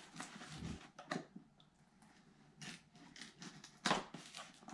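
Scattered short rustles and clicks of a cardboard laptop box being handled, the loudest near the end as a knife is put to its packing tape.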